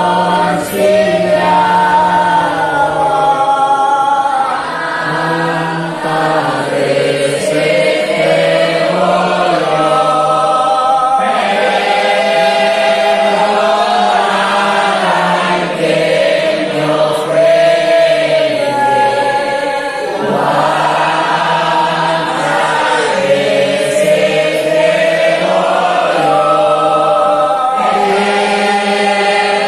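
Many voices singing a hymn together in a slow, continuous melody, with held notes that slide from one pitch to the next.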